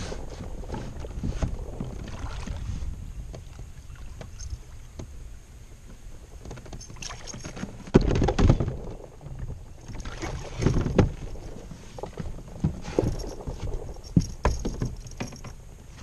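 A hooked largemouth bass being reeled to the side of a small jon boat and landed by hand, with water and handling noise throughout. In the second half there are several sudden loud splashes and knocks, the loudest about halfway in.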